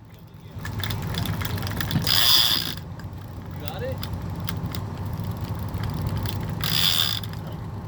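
Spinning fishing reel being cranked in two short spells, a whirring, ratchety sound, over the steady low hum of the boat's engine.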